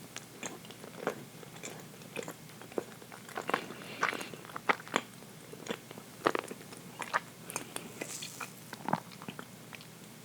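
A person chewing rich chocolate cake, with many short mouth clicks and smacks at an irregular pace.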